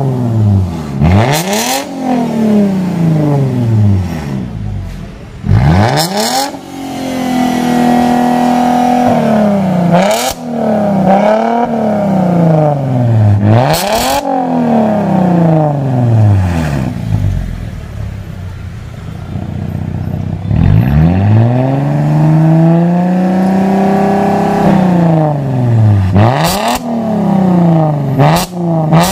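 Mercedes-Benz sedan with an aftermarket racing exhaust being revved from the tailpipe again and again, the engine note climbing and falling about eight times, some revs held for a couple of seconds. A few sharp cracks come as the revs rise and fall, loudest near the end.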